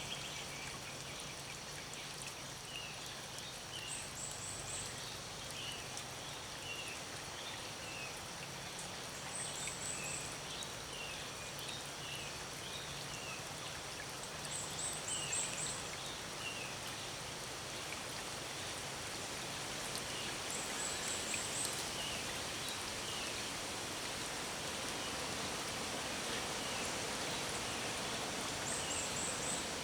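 Birds calling over a steady rushing background: scattered short high chirps throughout, and one bird repeating a short, very high series of four or five quick notes about every five or six seconds.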